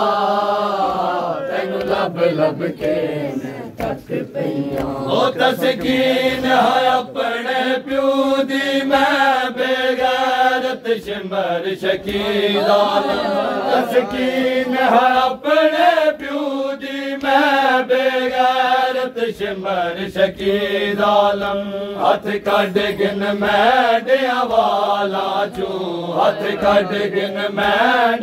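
Men chanting a noha, a mourning lament: a lead reciter on a microphone with a group of male voices singing along. Frequent sharp slaps of hands beating on chests (matam) run through the singing.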